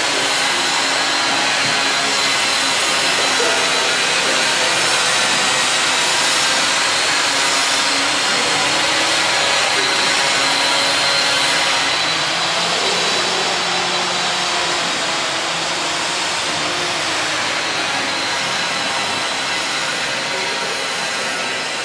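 Steady rushing noise with a thin high whine on top, easing slightly about halfway through.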